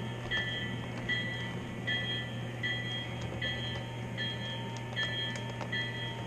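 Model railroad bell ringing at a steady pace, about one strike every 0.8 s, each strike a short clear ring, over a steady low hum.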